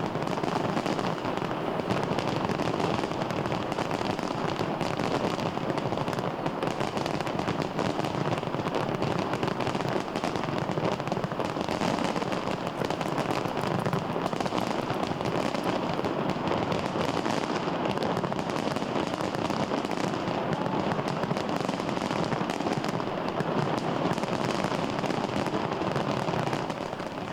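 A New Year's fireworks display: dense, continuous crackling and popping of bursting fireworks.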